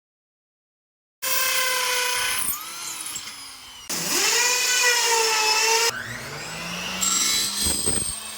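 Electric power drill running in several separate stretches, starting about a second in, its motor pitch rising and falling as the speed changes.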